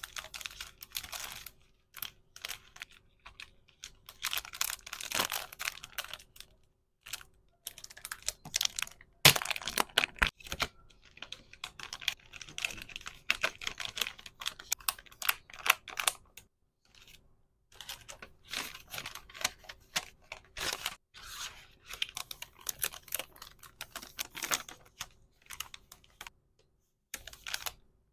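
Hands handling small packaging: rapid crinkling, rustling and tearing with quick clicks and taps, coming in bursts separated by several short pauses.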